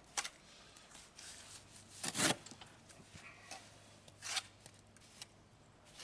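Steel trowel scraping and slapping wet mortar onto a concrete block in a few short strokes, the loudest a little over two seconds in.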